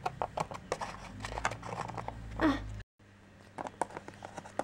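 Light taps and clicks of a small plastic Littlest Pet Shop toy figure being handled and walked over model scenery. About two and a half seconds in comes one louder, short sound that slides down in pitch, and the sound then cuts out briefly.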